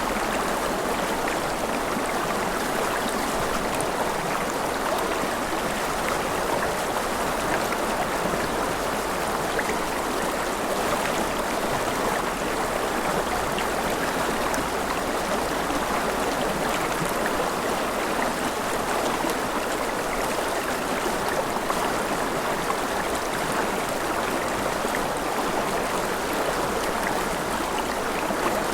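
Forest river flowing: a steady rush of water, strongest in the mid range.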